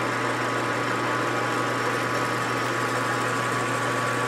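Grizzly G4003 12 x 36 gear-head lathe running steadily with the cross slide under power feed: an even whirr of motor and geared headstock with a constant hum and a thin steady whine over it.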